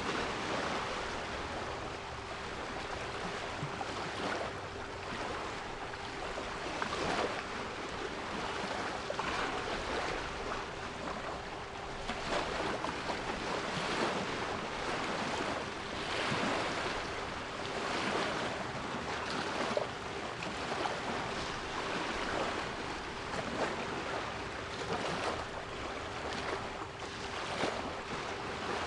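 Sea waves breaking and washing in, a steady rush of surf with repeated surges, under a constant 396 Hz pure tone.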